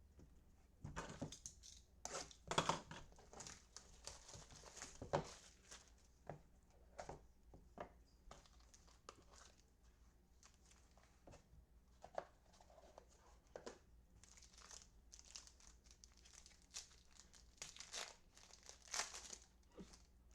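Faint plastic crinkling and tearing as a pack of baseball cards is opened and handled, with irregular crackles and sharp clicks of the cards, busiest in the first few seconds and again near the end.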